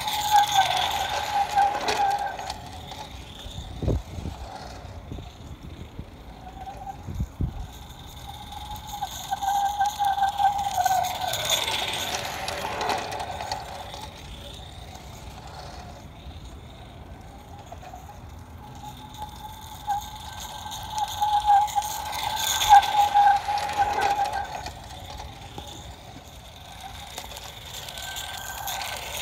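Accucraft Ruby live steam locomotive pulling a small caboose on G-scale garden track: a steady whine with rattling that grows louder and fades away as the train passes close by, three times.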